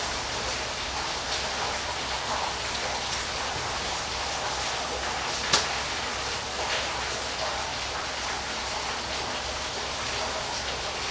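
Waterfall: a steady, even rush of falling water, with one sharp click about five and a half seconds in.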